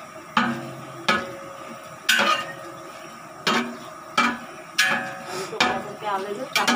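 A long metal ladle scraping and clanking against the side and bottom of a large metal cooking pot while stirring dried red chillies frying in oil. The sharp, ringing clanks come about once a second, in an uneven rhythm.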